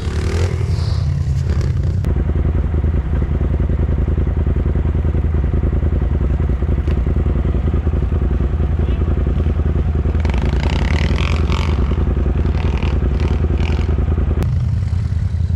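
A side-by-side UTV's engine running steadily at low speed, heard from inside its cab. For the first two seconds a small dirt bike's engine is heard instead.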